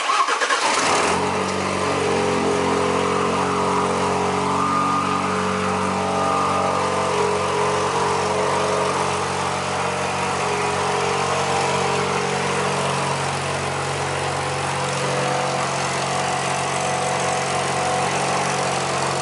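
Alfa Romeo 2.0-litre turbocharged four-cylinder engine starting on a cold start. It catches at once and flares up for about a second, then settles to a steady idle.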